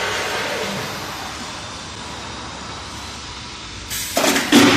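Industrial vacuum fryer machinery running with a steady mechanical noise that eases slightly and then holds. Near the end comes a sudden loud burst of rushing noise lasting about a second.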